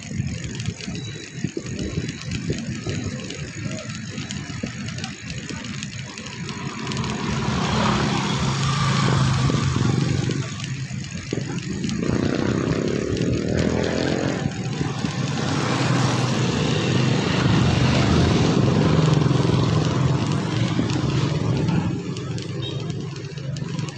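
Small motorcycle engine running steadily while riding, with a steady rush of wind and road noise; the engine pitch rises about halfway through as it speeds up.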